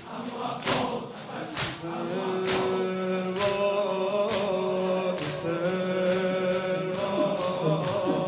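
Crowd of mourners chanting a Shia noheh (dirge) in unison, with long held notes from about two seconds in. A sharp rhythmic beat falls a little less than once a second throughout.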